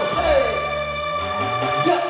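Music with long held notes and a falling slide about half a second in.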